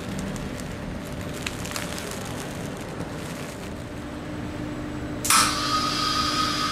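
Light clicks and crackles, then a little over five seconds in a valve on the vacuum unit opens and air rushes through the vacuum line with a sudden loud hiss and a steady whistle, as the resin-infusion bag is put under vacuum.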